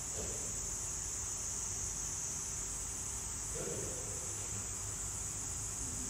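Steady, high-pitched insect chorus: a continuous shrill buzz.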